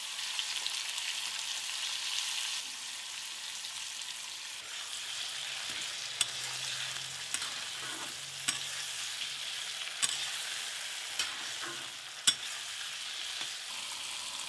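Diced potatoes sizzling in hot oil in a kadai, a steady frying hiss. In the second half a spatula stirring them knocks against the pan about six times in sharp clicks.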